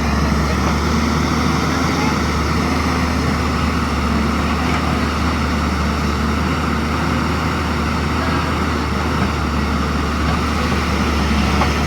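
Diesel engine of a JCB 205 excavator running steadily with a low hum, the level even throughout.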